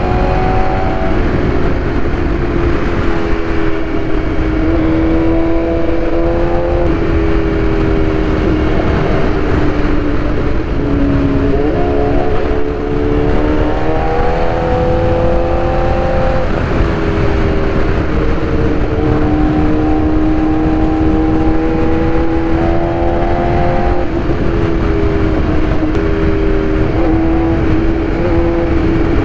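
BMW S1000RR inline-four sport bike engine running at road speed, its note stepping down and climbing again every few seconds with throttle and gear changes. A constant rush of wind noise runs underneath.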